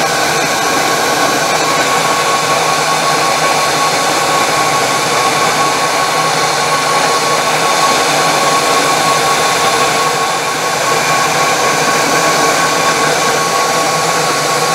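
Milling machine spindle motor running steadily: an even whine with one held tone over a hiss.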